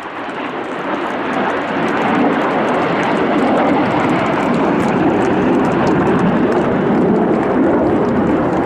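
Jet noise from the Red Arrows' BAE Hawk T1 jets, growing louder over the first two seconds and then holding steady as the aircraft fly overhead after breaking formation.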